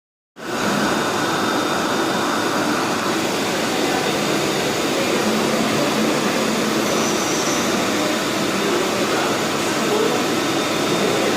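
CNC lathe running during a turning operation: a steady, even machine noise with faint steady tones, starting about half a second in.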